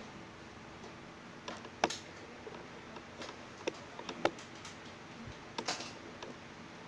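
Scattered light clicks and taps from a full-metal airsoft pistol being handled and turned over in the hand, the sharpest about two seconds in and again a little past the middle, over faint room noise.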